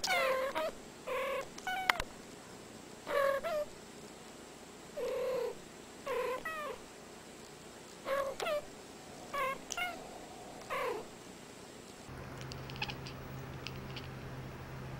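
Domestic cats meowing in short calls, about a dozen brief ones over the first eleven seconds, each with a bending, mostly falling pitch. From about twelve seconds a steady low hum takes over with only faint sounds on top.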